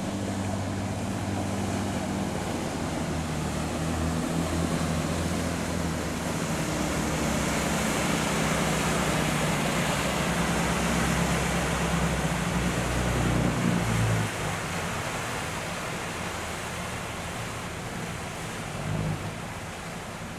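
Wind and water rushing past a ship at sea, under a low, steady engine hum that drops away about 14 seconds in.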